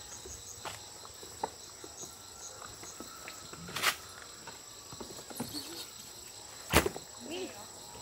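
Steady high insect chorus, like crickets, with two sharp knocks, about four and seven seconds in, the second the louder.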